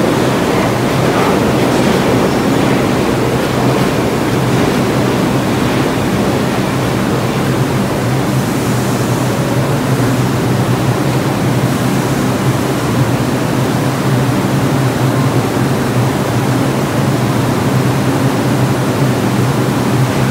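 New York City Subway train pulling into the station and slowing to a stop, a steady loud rumble with a constant low hum from the cars.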